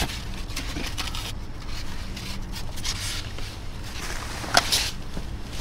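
Rustling and scraping as trash bags and debris are shifted about in a dumpster, with one sharp knock about four and a half seconds in.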